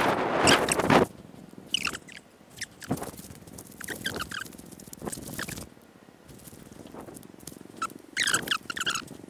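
Riding a bicycle along a dirt track, heard from a chest-mounted camera: wind on the microphone for about the first second, then a quieter steady rolling noise with short, high, squeaky chirps several times.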